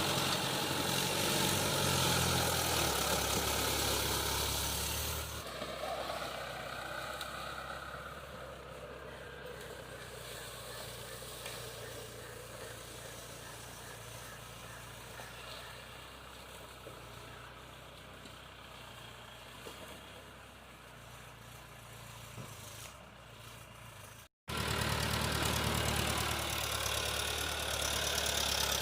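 Tractor engine running steadily, loud at first and then fading gradually over about twenty seconds; after a brief cut to silence about 24 seconds in, loud engine noise returns.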